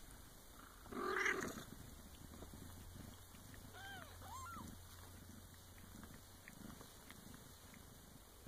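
Bengal cats purring, a low steady purr from the mother and her nursing kittens, with a few thin, high kitten mews that rise and fall around the middle. A short louder noise comes about a second in.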